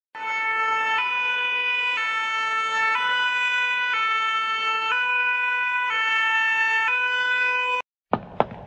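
Two-tone fire engine siren, switching between a lower and a higher pitch about once a second, then cutting off suddenly near the end. A couple of sharp taps follow just after it stops.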